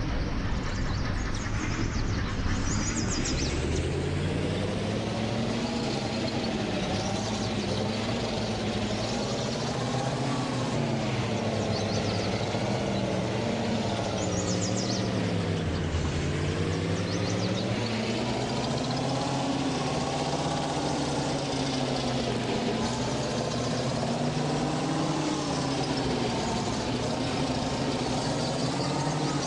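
GAZ truck engine running with its revs rising and falling. The engine speeds up a couple of seconds in, drops sharply about halfway through, then picks up again.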